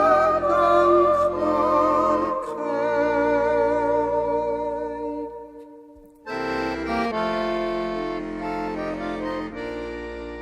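Accordion playing an instrumental interlude of Swiss folk yodel music, steady chords over a sustained bass, the phrase fading and a new one starting about six seconds in. A held sung note with vibrato ends about two seconds in.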